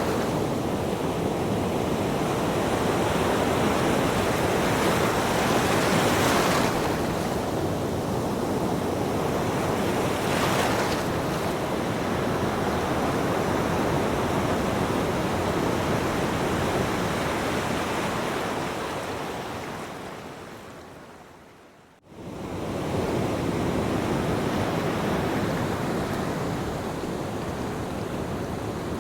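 Recorded ocean surf: a steady wash of breaking waves with a couple of louder swells. About two-thirds of the way through it fades down almost to nothing over a few seconds, then cuts abruptly back in at full level, like the loop point or splice of the wave recording.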